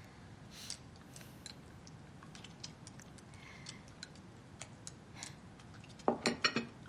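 Chopsticks and tableware clicking against bowls and plates during a meal: scattered light clicks, with a quick cluster of louder clinks near the end.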